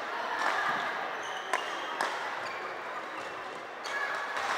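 Badminton rally: sharp racket strikes on the shuttlecock, the loudest two about half a second apart, with sneakers squeaking briefly on the court floor over hall noise.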